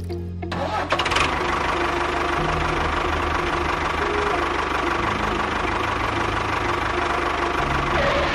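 A small engine or motor starts about half a second in and runs steadily at an even pitch, then cuts off sharply near the end, with background music underneath.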